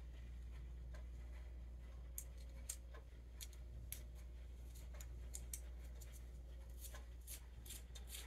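Faint, scattered light clicks and taps of small metal parts, lock washers and nuts, being handled against a cast Ford 8N carburetor body, over a low steady hum.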